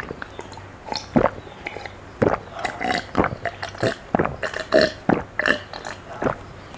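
A person gulping water from a glass bottle, one swallow after another at an uneven pace.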